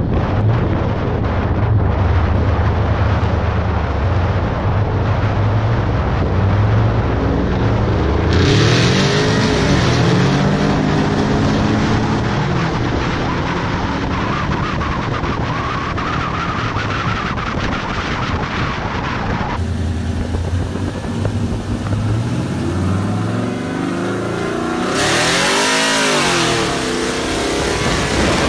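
Car engines running hard at speed, their pitch climbing and dropping as they rev and change gear, over a heavy rush of wind and road noise.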